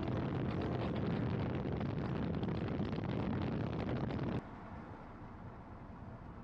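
Wind and road noise of a pickup truck driving at highway speed, a steady rushing sound; about four seconds in it cuts suddenly to a quieter, steady road hum inside the cab.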